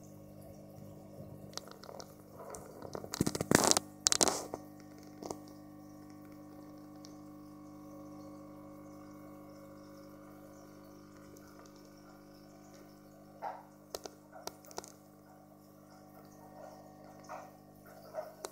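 Aquarium internal filter running with a steady low hum, with water trickling and dripping. A few loud sharp knocks about three to four seconds in, and lighter clicks later on.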